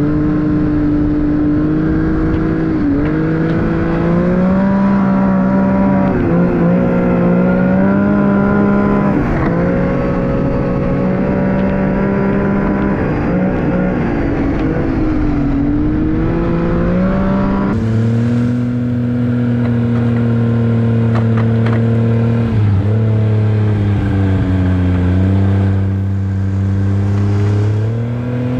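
Arctic Cat snowmobile engine running under way, its pitch rising and falling as the throttle opens and eases. About eighteen seconds in the note drops to a lower, steadier drone.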